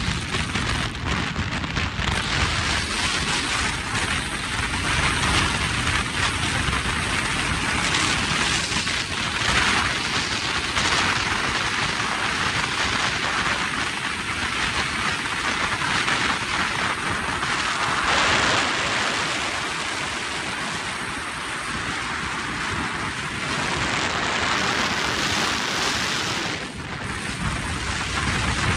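Wind rushing over a phone held up through an SUV's open moonroof at highway speed, buffeting the microphone in uneven swells, with the vehicle's road noise underneath.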